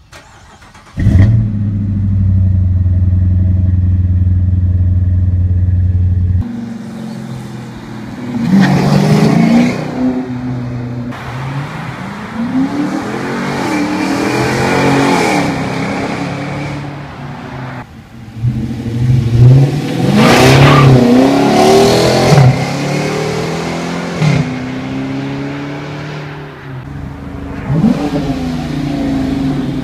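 Dodge Charger R/T's 5.7-litre HEMI V8 through Flowmaster 40 mufflers with the resonators deleted: a cold start about a second in, settling into a steady fast idle. After a cut, the car passes and accelerates several times, the engine note rising and falling as it goes by.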